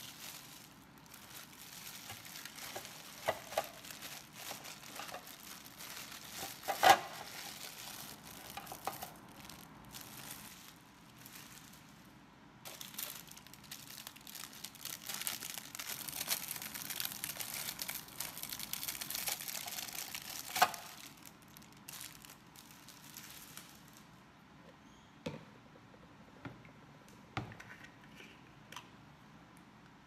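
Thin plastic food bag crinkling and rustling as hands open it and shake pieces out, with a couple of sharp clicks. After about 24 seconds the crinkling stops, leaving only a few light knocks.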